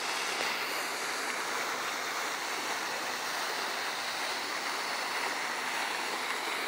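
Steady rushing of running water in a plaza fountain pool.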